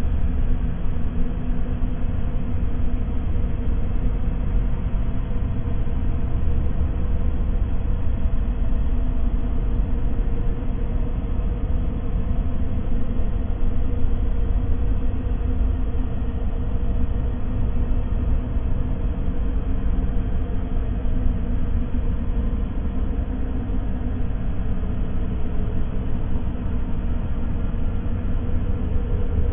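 Steady, unbroken low rumbling noise, heavy in the bass with a faint steady hum, played as a white-noise sleep and focus sound.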